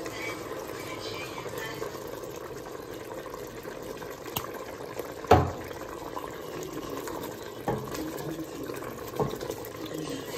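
Lamb curry simmering in a stainless steel pot as it is stirred with a silicone spatula, with a few sharp knocks against the pot, the loudest about five seconds in.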